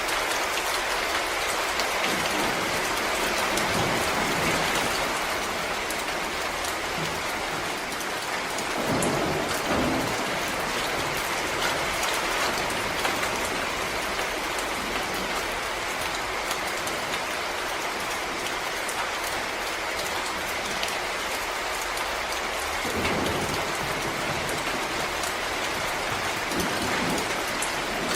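Steady rain falling through a forest, the drops pattering on leaves and the ground. A brief low rumble comes about nine seconds in and again about twenty-three seconds in.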